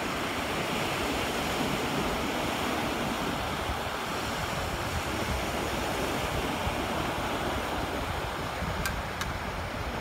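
Steady wash of sea surf mixed with wind noise, with two faint clicks near the end.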